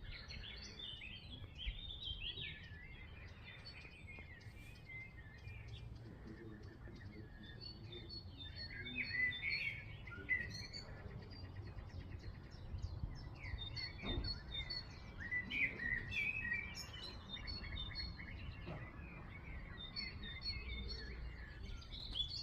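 Several birds chirping and calling over one another in a continuous chorus of short, high notes and quick trills, over a low steady background rumble.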